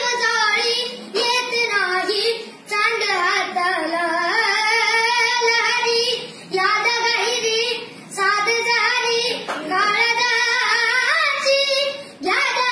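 A boy singing a Marathi song solo and unaccompanied, in wavering held phrases with short pauses for breath between them.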